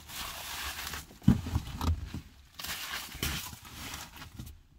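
Plastic bubble wrap crinkling and rustling as it is handled and moved, in two stretches, with a soft thump about a second in.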